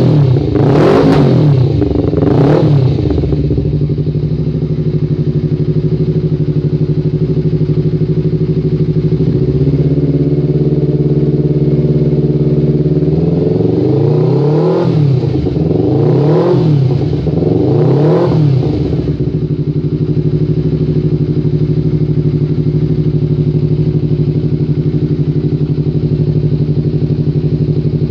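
Honda CBR 250RR motorcycle engine running through an aftermarket Abenk muffler, idling steadily. Its throttle is blipped in quick revs that rise and fall back to idle: a couple in the first few seconds and three more in the middle.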